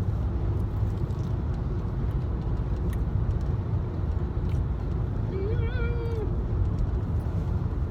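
A dog whines once, high and wavering, for about a second, a little past halfway through, over the steady low rumble of a car cabin.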